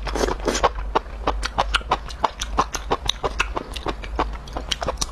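Close-miked wet chewing and lip smacking of a mouthful of chili-sauced fried skewer food, a quick, even run of sticky clicks and smacks.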